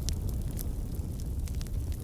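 Wood fire burning: a steady low rumble with a few sharp crackles and pops from the burning wood.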